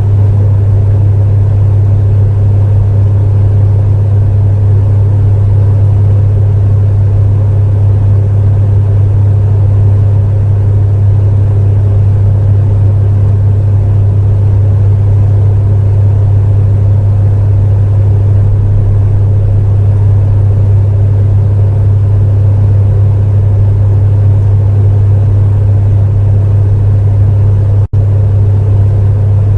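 Electric space heater running steadily: a deep, even hum with a fainter airy whir above it. It cuts out for a split second near the end.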